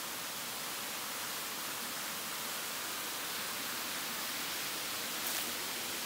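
Small woodland waterfall: a steady rush of falling, splashing water. A faint brief rustle comes about five seconds in.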